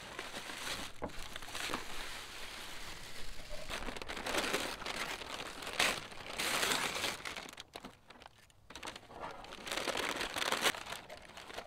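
Kraft wrapping paper and honeycomb paper packing crinkling and rustling as hands pull and tear them apart, in uneven bursts with a short lull about eight seconds in.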